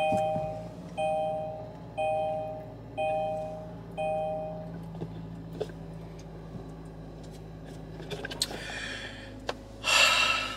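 A Kia car's two-note dashboard warning chime rings five times, once a second, and then stops, over the steady low hum of the just-started engine idling. Near the end come two brief rustles.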